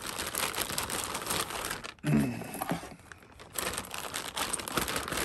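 Plastic packaging bag crinkling as it is handled, in two stretches with a short lull about two seconds in.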